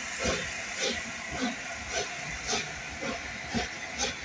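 Passenger train hauled by the LNER A4 steam locomotive Sir Nigel Gresley moving off, its coaches rolling close past with a steady hiss and a regular beat about twice a second.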